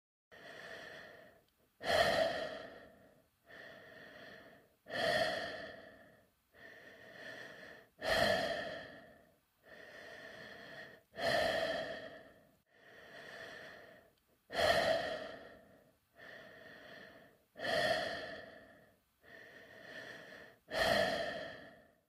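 A person breathing inside a space helmet, slow and regular. A softer breath alternates with a louder one that starts sharply and then fades, about one full breath cycle every three seconds, seven cycles in all.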